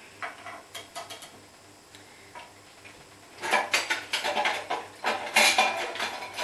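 Metal kitchen utensils clattering and rattling as they are rummaged through, after a few light clicks; the clatter starts about three and a half seconds in and keeps going.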